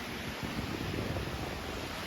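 Steady wash of surf on the beach, with wind buffeting the microphone in a low, gusty rumble.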